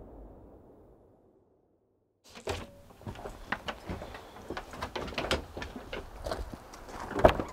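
Background music fades out, and after a moment of silence come the clatter of a wooden cabin door being opened and handled, and footsteps and a dog's paws knocking on a wooden porch. There is a louder thunk near the end.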